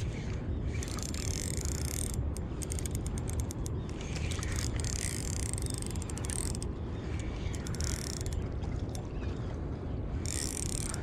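Fishing reel worked while playing a hooked queenfish: bursts of whirring winding alternate with a run of rapid clicking, the sound of line being gained and given.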